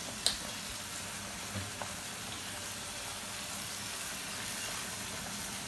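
Diced carrots and green capsicum frying in oil with soy sauce and chili sauce, a steady sizzle in the pan, with one sharp click shortly after the start.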